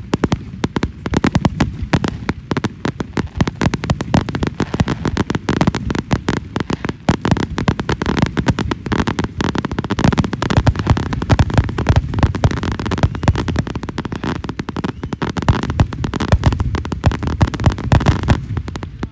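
Aerial fireworks going off in a rapid, continuous barrage, with many bangs a second and no let-up.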